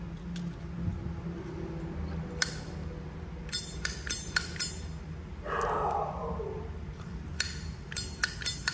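Silver-plated Zippo lighter being worked by hand: its lid flicked open and snapped shut, giving a series of sharp metallic clicks and clinks in clusters, with a short rasping sound about two-thirds of the way through. The lid's sound is judged passable.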